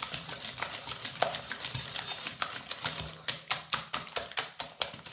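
A fork beating eggs and sugar in a ceramic bowl: a quick run of clicks as the metal strikes the bowl, sharper and louder in the second half. The beating is to dissolve the sugar into the eggs.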